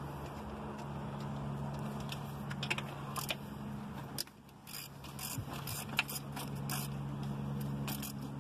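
Hand ratchet clicking in short quick runs as the intake manifold bolts are worked loose, over a steady low hum.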